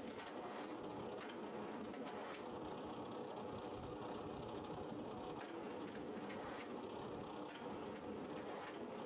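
Horizontal log splitter running steadily, its ram driving logs against the wedge, with faint knocks along the way.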